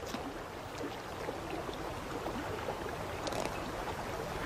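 Steady rush of flowing river water, with a few faint short wet tearing and tapping sounds from a bald eagle's beak ripping flesh from a salmon carcass, near the start and again a little past the middle.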